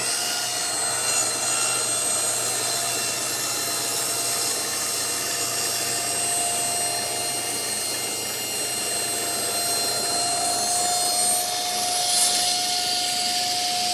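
Table saw running and ripping a pine board, with a wooden wedge in the kerf behind the blade to keep the cut from closing and pinching the blade. The blade gives a steady whine over a sawing hiss. Right at the end the whine starts to fall in pitch as the saw is switched off and spins down.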